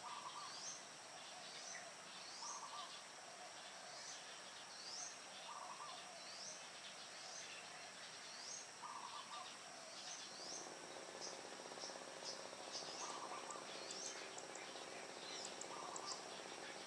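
Dawn birdsong over a steady high insect drone: one bird repeats a short rising chirp about once a second, while a lower short note comes every couple of seconds. A low steady hum joins about ten seconds in.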